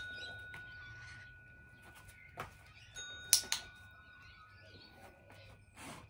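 A small push bell on the floor, rung by a dog nosing it. A ring fades through the first couple of seconds. About three seconds in come two sharp taps and a fresh clear ring that dies away near the end.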